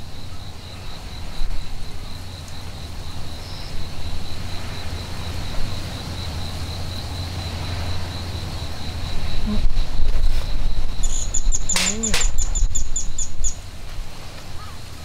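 A high-pitched insect trill pulsing steadily, with a low wind rumble on the microphone. Near the end a rapid series of higher chirps comes in for about two seconds, with a brief sharp rustle among them.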